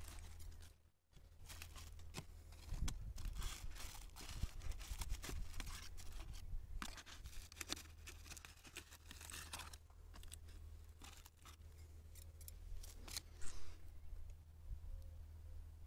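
Scissors snipping through thin plastic bag wrapping, with the plastic crinkling and tearing: irregular sharp snips and rustles throughout.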